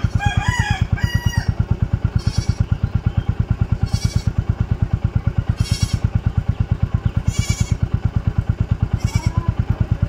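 Royal Enfield single-cylinder engine idling with an even thump, about eight beats a second. A rooster crows about a second in, and short hisses come every second and a half or so.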